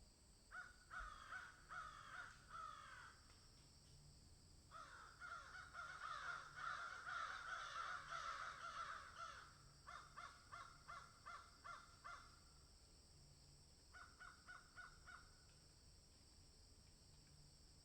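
A flock of crows cawing in bursts: a few harsh caws, then a dense stretch of many birds calling over one another, then two runs of quick repeated caws.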